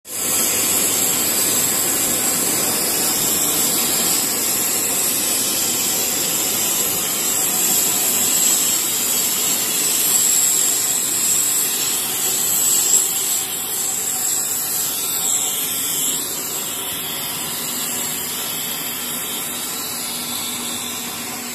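A PE helical corrugated pipe extrusion line running: steady industrial machine noise, a loud even hiss with a thin high whine over it, easing off a little about two-thirds of the way through.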